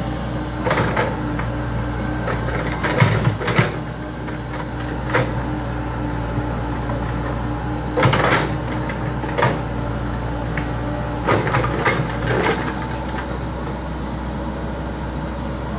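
Komatsu PC70 excavator's diesel engine running steadily under working load, with a series of sharp clanks and knocks from the bucket and arm as it digs around a tree and pushes at it.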